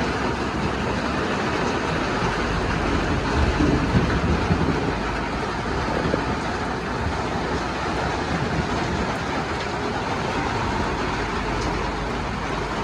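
Steady rain, an even dense noise, with a brief swell of low rumble about four seconds in.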